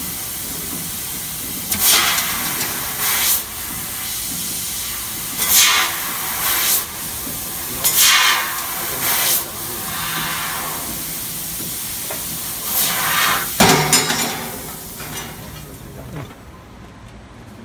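2200 W fiber laser cutting head cutting a steel tube, its assist gas hissing steadily from the nozzle, with about eight louder hissing surges. The hiss dies away near the end as the cut finishes.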